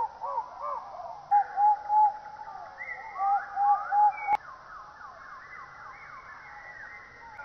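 Animal calls: rapid runs of short rising-and-falling pitched notes, several a second, coming in two loud runs. They break off with a sharp click about four seconds in, and fainter rising calls follow.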